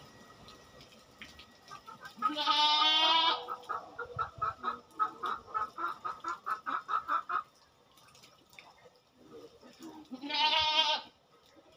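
A goat bleats twice: a long wavering bleat about two seconds in and a shorter one near the end. Between them comes a fast run of short repeated calls, about five a second.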